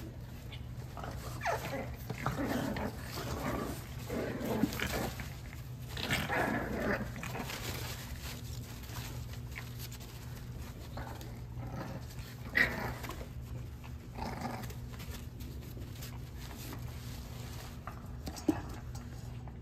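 French bulldog puppies growling, yipping and whining as they play-fight, in quick succession for the first several seconds, then only now and then.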